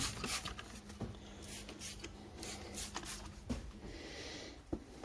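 Small diesel fuel pump parts being cleaned by hand: intermittent light scraping, rubbing and clicks, with a faint steady low hum for the first few seconds.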